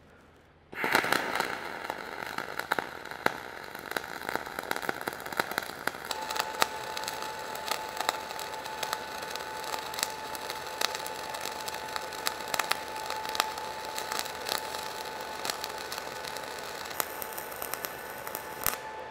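Gas-shielded (dual shield) flux-core arc welding on a vertical test plate: the arc strikes about a second in and runs on as a steady crackle and sizzle, dotted with sharp spatter pops.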